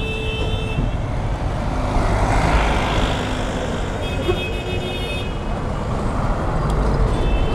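Road traffic noise over a steady low engine hum, with a vehicle horn sounding for about a second at the start and again about four seconds in.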